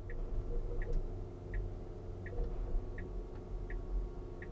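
Tesla Model Y's turn-signal indicator ticking steadily, seven even ticks about three-quarters of a second apart, over a low cabin hum. Full Self-Driving has put the signal on because it takes this spot for a turn.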